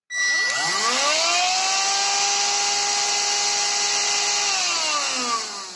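Redmond RV-UR363 vacuum cleaner motor spinning up with a rising whine, running steadily at speed, then switched off and winding down about three-quarters of the way through. Its impeller has just been cleaned of packed debris, and it now runs evenly.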